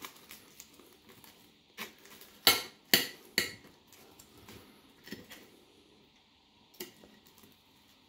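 Serrated knife sawing through the crisp, flaky puff pastry of a steak bake, its blade scraping and clicking against a ceramic plate in a few short strokes, loudest about two to three and a half seconds in, with fainter ones later.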